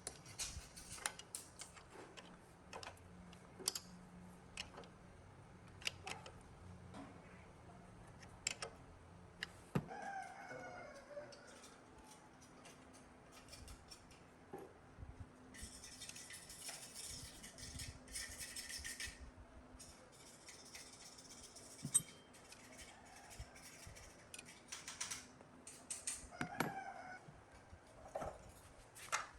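Irregular light clicks and taps, with a hiss lasting a few seconds about midway and a short call falling in pitch about ten seconds in.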